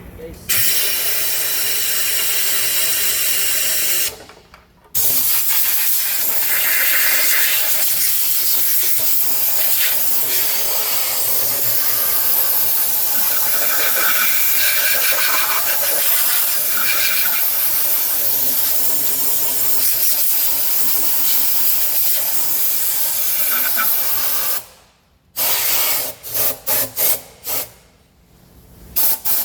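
Pressurized spray hissing loudly as dirty engine parts are cleaned. It is one long blast with a brief break about four seconds in, then a string of short bursts near the end.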